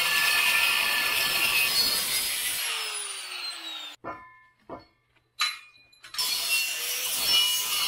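Angle grinder cutting through the end of a steel tube to trim it even. About two and a half seconds in the trigger is released and the wheel's whine falls as it spins down. After a quiet gap with a few light knocks, the grinding starts again about six seconds in.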